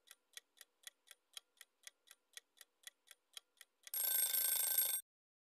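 Countdown-timer sound effect: a clock ticking about four times a second, then, about four seconds in, a louder alarm ring lasting about a second that cuts off suddenly, marking the end of the countdown.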